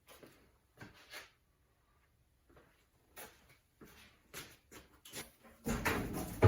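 Scattered light knocks and taps from a loaded homemade hand dolly being worked, then a louder clattering rattle in the last second.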